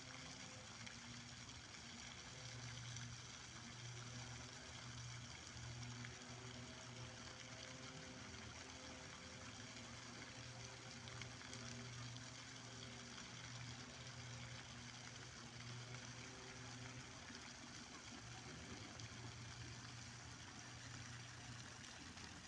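Faint waterside ambience: a steady low mechanical hum with a soft, even hiss over it. No duck calls stand out.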